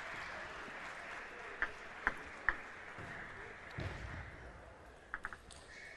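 A table tennis ball bouncing with light, sharp clicks: three about half a second apart, then a quick run of three near the end, over faint hall background noise, with a soft low thump in between.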